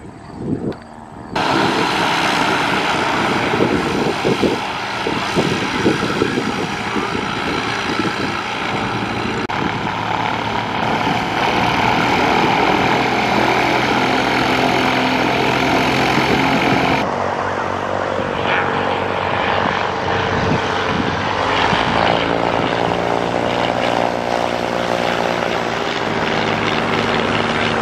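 Light single-engine propeller planes' piston engines running, heard across several cut-together clips, with abrupt changes in the sound about a second in and again past the middle. In the last part a steady engine drone whose pitch slowly shifts as a plane passes.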